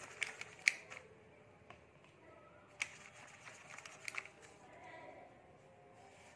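Faint scrubbing of a paintbrush in the cakes of a metal watercolour tin, with a few sharp clicks as it knocks against the tin.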